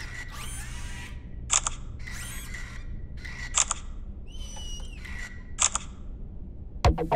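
Three smartphone camera shutter clicks about two seconds apart. Between them come short robotic servo whirs that glide up and down in pitch as the humanoid robot moves and poses.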